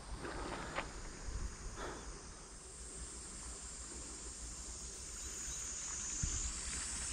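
Outdoor ambience with a steady high insect chirring, growing a little louder near the end, and a few faint knocks in the first two seconds.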